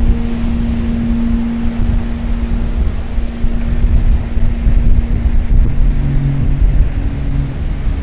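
Sea surf washing over a rocky shore with wind rumbling on the microphone, under soft sustained background music notes.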